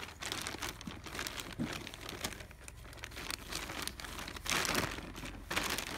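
Polythene grow bag crinkling and paddy straw rustling as a coil of straw is pressed down tightly into the bag by hand, loudest about four and a half seconds in.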